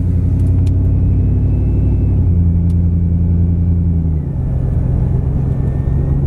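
Chevrolet Silverado pickup's engine running steadily under way, a low drone; its note drops slightly about four seconds in.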